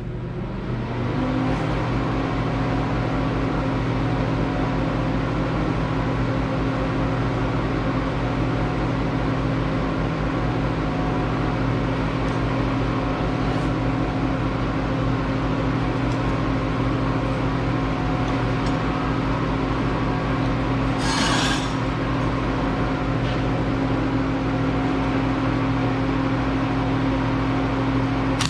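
Electric welder running a long, continuous weld on steel: a steady electrical hum under a hiss. It starts about a second in, and there is a brief louder hiss a little after two-thirds of the way through.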